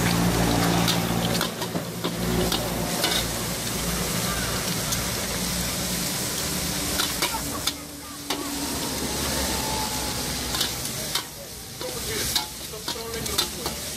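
Metal spatula scraping and clanking against a steel wok as shredded cabbage and vegetables are stir-fried, over a steady sizzle. A low motor hum runs under the first half and fades about six seconds in.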